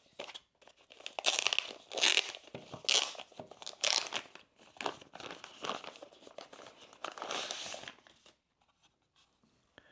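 Plastic packaging being handled and unwrapped, crinkling and rustling on and off, falling quiet near the end.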